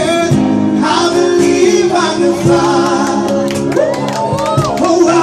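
Voices singing a slow pop ballad over instrumental backing, holding long notes and sliding through curving vocal runs about four seconds in.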